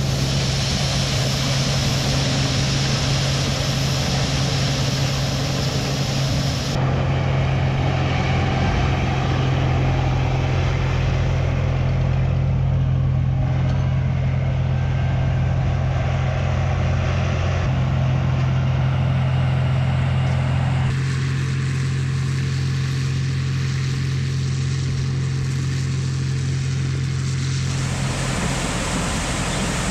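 A farm machine's engine running steadily with a deep hum. The sound shifts abruptly in character a few times.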